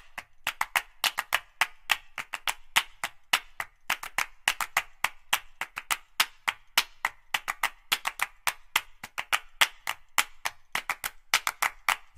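A quick, uneven run of sharp percussive clicks, several a second, like claps or wood-block taps.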